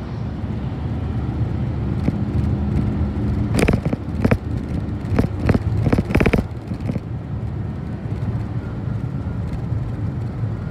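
City bus driving, heard from inside the cabin: a steady engine and road rumble with a low hum. There is a cluster of sharp knocks about four seconds in and again around six seconds in.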